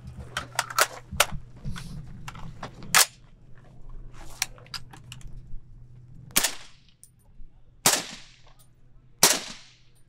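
Shots from a .308 SCAR-type rifle fitted with a .30-cal suppressor prototype. A few light clicks and a sharp clack come first as the rifle is readied, then three shots in the second half, about a second and a half apart, each with a short ringing tail. The sound is far more gentle than the unsuppressed fire.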